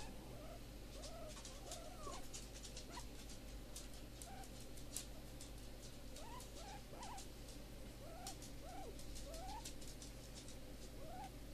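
Guinea pig sow squeaking softly while being stroked: short squeaks that rise and fall in pitch, in little runs of several with pauses between, a sign she is content with the rub. Faint scratchy clicks run alongside.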